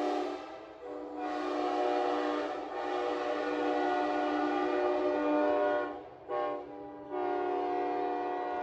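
Early-1990s Nathan Airchime K5LA five-chime locomotive air horn, freshly fitted with new diaphragms and cushions, sounding its chord in blasts. A blast ends just under a second in, a long blast follows, then a short toot about six seconds in and another long blast.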